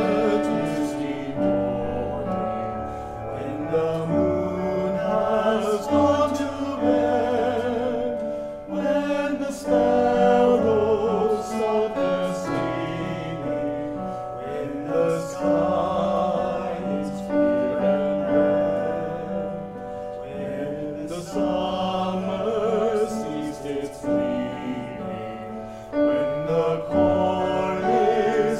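Mixed adult choir singing a slow choral arrangement in several parts, with a cello sustaining low notes beneath the voices.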